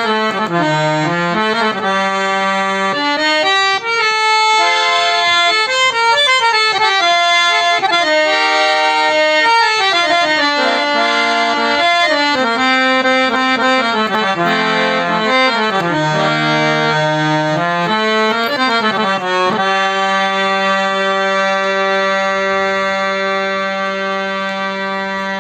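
Antique harmonium with bass male reeds being played: a melody over chords moving in steps. From about twenty seconds in, a single chord is held steadily and slowly fades.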